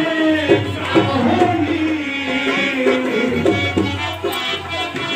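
A man's voice singing a slow melody with long held notes through a microphone and loudspeaker, over a steady low hum.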